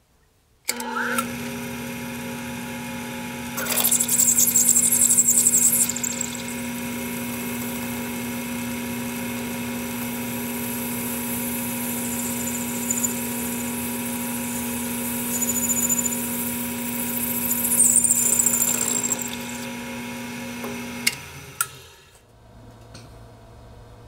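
Drill press motor switched on about a second in and running with a steady hum. Twice the bit cuts into a chrome-plated metal water valve, each time a loud, harsh, high-pitched grinding of metal being drilled. The motor is switched off near the end and runs down.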